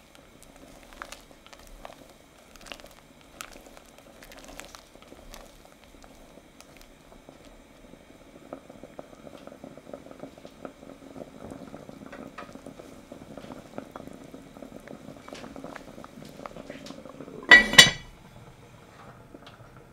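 Pumpkin and chickpea soup bubbling in an enamelled cast-iron pot, with a spatula stirring and tapping against the pot. Near the end the heavy cast-iron lid is set on with one ringing clank, the loudest sound.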